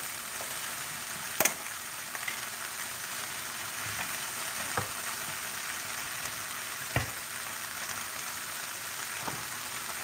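Vegetables and saltfish sizzling steadily in a frying pan while being stirred, with three sharp knocks against the pan, the loudest about a second and a half in.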